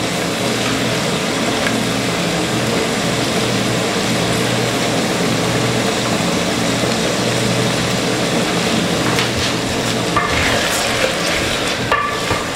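Mixed vegetables (peas, carrots and sweet peppers) sizzling steadily in an aluminium cooking pot, stirred with a wooden spoon.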